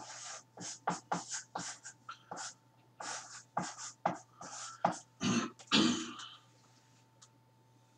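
Quick, scratchy strokes of hand drawing, some fifteen short strokes in a little over six seconds, then it stops.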